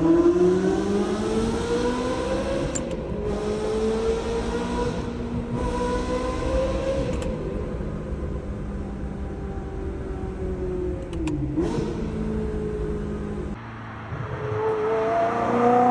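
Ferrari 360 Modena's V8 engine running under throttle, its pitch climbing slowly for several seconds and then easing off. About eleven seconds in the note dips sharply and recovers; near the end it rises again in a fresh rev.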